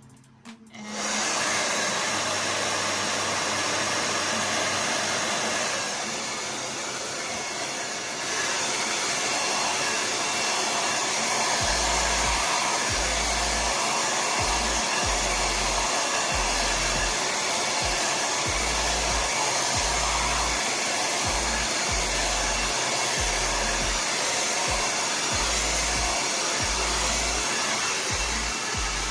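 Handheld hair dryer switched on about a second in and running steadily on wet natural hair, a little quieter for a couple of seconds around six seconds in, with uneven low rumbles in the second half.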